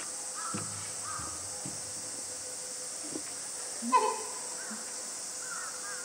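Repeated short bird calls, with one louder call about four seconds in, over a steady high-pitched insect drone.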